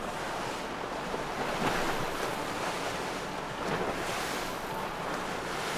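Choppy sea water splashing and rushing, with wind on the microphone.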